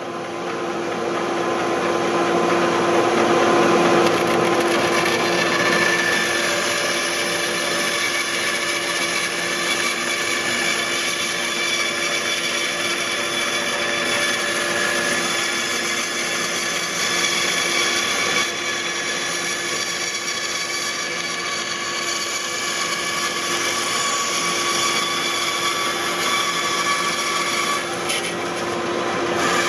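Bandsaw running steadily, its blade cutting lengthwise through a striped laminated wooden longboard deck to trim away a crack.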